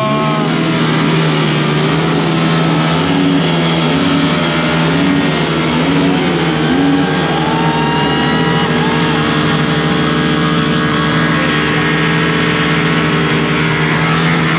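Motorcycle engine held at high revs during a rear-tyre burnout, the pitch staying steady with the spinning tyre squealing.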